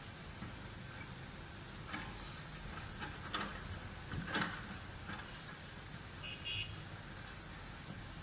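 Excavator's diesel engine running with a steady low rumble, with a few short louder noises near the middle.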